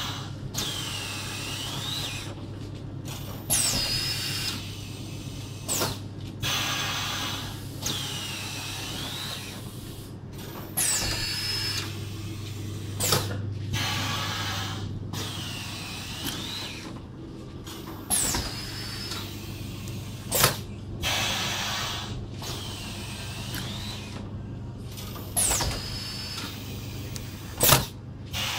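Screen-printing press with a motorized print head cycling over a steady machine hum. Every three and a half seconds or so the head makes a stroke across the screen, heard as a rush of noise with a sliding whine. About every seven seconds there is a sharp clack.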